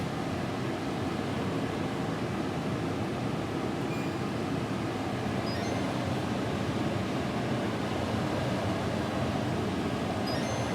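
LG air conditioner running, its fan blowing air with a steady, even rushing noise.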